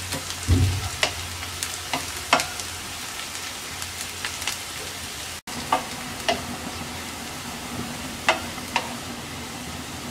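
Sliced onions, garlic and dried red chillies sizzling in hot oil in a nonstick frying pan as they are fried until brown, stirred with a wooden spatula that knocks and scrapes against the pan now and then. The sound cuts out for an instant about halfway through.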